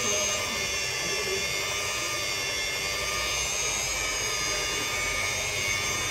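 Rotary polisher running steadily with a high whine as its pad buffs a freshly painted scooter body panel.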